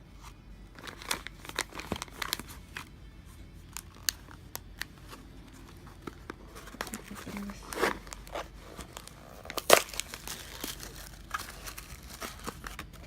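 Product packaging being crinkled and torn open by hand, irregular rustling and crackling, with the loudest crackle about ten seconds in.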